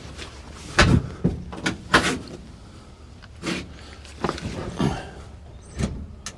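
Several sharp clicks and knocks, spaced irregularly through a few seconds, as the light switches of a 1952 Willys truck are worked: the headlights go from high beam back to low and then off.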